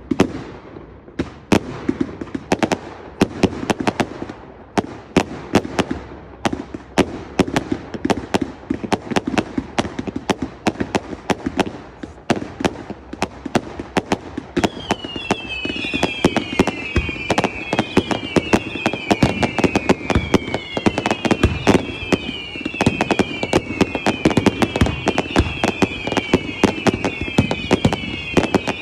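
Fireworks display: a dense run of bangs, pops and crackles from bursting shells, growing busier about halfway through. From then on, a string of repeated falling whistles from whistling fireworks joins in.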